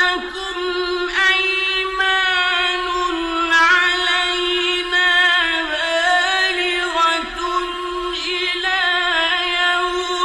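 A solo male Quran reciter chanting in the melodic mujawwad style. He holds long, ornamented notes with wavering pitch and does not break for breath.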